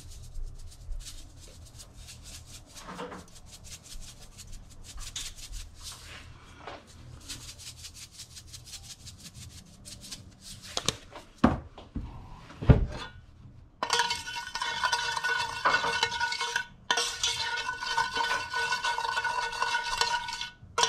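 Cookware handling: light clicks and taps, then a few louder knocks of a pan. About two-thirds of the way in, a spatula starts stirring sauce around a stainless steel pan, scraping steadily against the metal.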